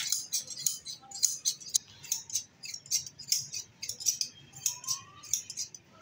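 Hand scissors snipping through a sheep's wool during shearing: rapid, irregular sharp metallic snips, several a second.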